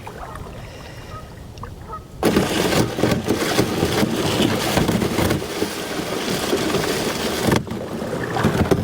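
Canoe hull grinding, crunching and scraping against thick river ice as it is forced onto the ice sheet, starting suddenly about two seconds in with loud cracking that eases a little near the end. Only a few faint clicks come before it.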